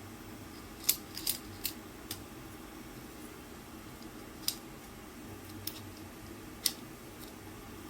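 Scattered sharp clicks, a cluster of four in the first two seconds and then three more spaced out, over a steady low hum.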